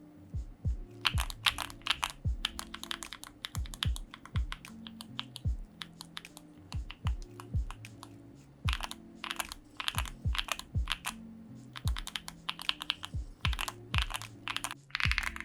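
Custom mechanical keyboard typing in bursts of rapid key clicks with short pauses, over soft background music.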